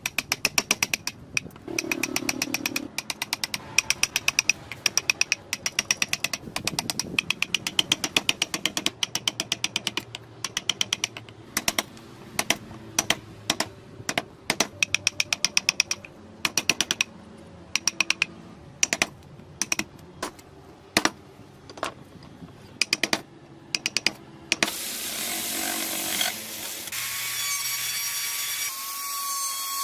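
A steel wood chisel is struck in quick runs of sharp taps as it cuts into a block of wood. Near the end, an electric rotary tool with a carving burr starts up and runs with a steady high whine, grinding into the wood.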